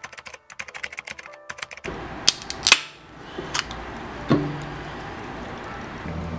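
Typewriter key-click sound effect, a rapid run of clicks lasting about two seconds. Then an aluminium drink can's pull tab snaps open with two sharp clicks about half a second apart, and a lighter click follows a couple of seconds later.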